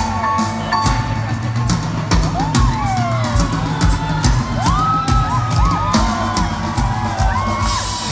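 Live rock band playing an instrumental passage with no singing: the drum kit keeps a steady beat under a lead line that slides up and down in pitch.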